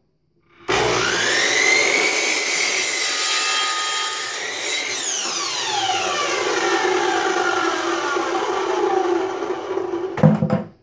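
Craftsman miter saw starting up with a rising whine and cutting a wooden board at a 30-degree miter. The trigger is then released and the blade winds down over about five seconds with a falling whine. A few knocks come near the end.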